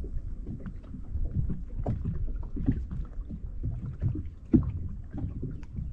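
Small waves lapping and slapping irregularly against a boat's hull, over a steady low wind rumble. The loudest slap comes a little past the middle.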